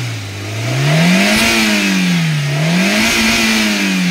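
Maruti Zen Estilo engine revved repeatedly with the AC switched on, its pitch falling, then rising and falling twice. The revving demonstrates an intermittent squeak that the mechanic puts down to a worn AC compressor clutch needing replacement.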